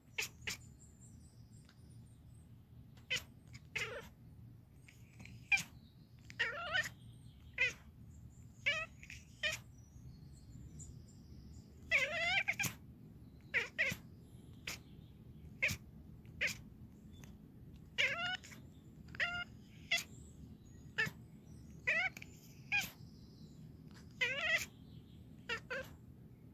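Scottish Fold cat chattering: a long run of short clicks and brief rising chirps, coming every second or so. This is the excited chatter a cat makes while watching birds.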